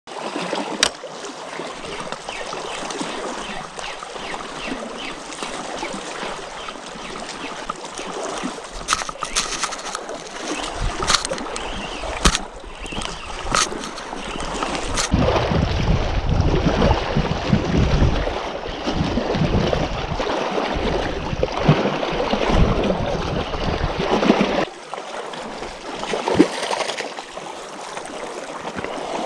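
Water splashing and trickling, with scattered sharp clicks and knocks. A heavy low rumble joins about halfway through and cuts off suddenly about five seconds before the end.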